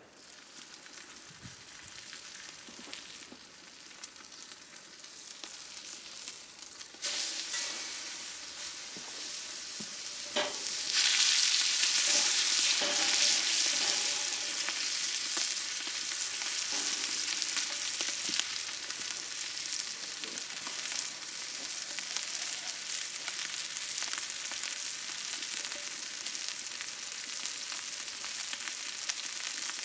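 Food frying and sizzling in a pan over an open fire, a steady hiss that grows louder about 7 seconds in and again about 11 seconds in, as if more food goes into the hot fat.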